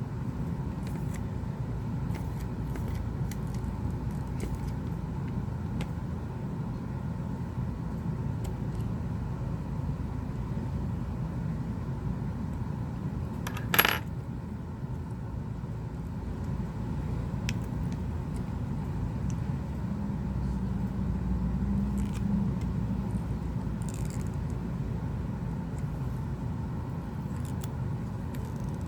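Steady low background rumble with faint scattered ticks of small parts and tools being handled. About halfway through comes a single sharp, ringing metallic clink of a small metal object striking the work surface.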